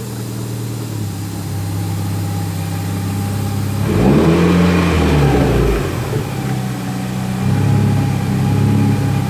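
Mitsubishi Lancer Evolution IX's turbocharged four-cylinder engine idling steadily, blipped once about four seconds in so the revs rise and fall, with a smaller rise in revs near the end.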